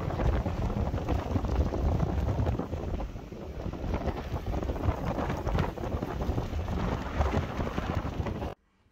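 Wind buffeting the microphone in gusts, a heavy low rumble over a rushing noise. It cuts off suddenly near the end.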